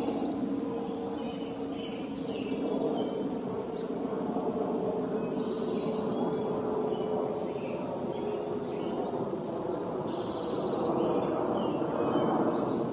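Steady outdoor background rumble with faint, short bird chirps scattered through it.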